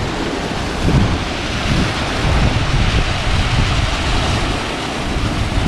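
Wind buffeting the microphone with a loud, uneven low rumble, over the steady wash of ocean surf.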